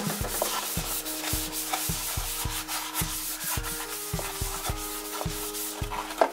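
Fingers rubbing cooking oil over the inside of a cut-open cardboard milk carton: a dry rubbing and scuffing of the carton walls, with many small knocks as it is handled.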